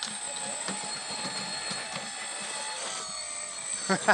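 Hydraulic pump of a 1/14-scale RC4WD 797F mining dump truck running, a steady high whine over mechanical clatter, then a few sharp clunks near the end.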